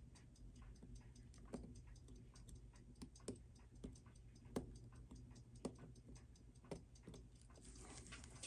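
Faint, irregular clicks and taps of small watchmaker's tools against the parts of a quartz watch being disassembled, a dozen or so light ticks spread unevenly over a quiet bench.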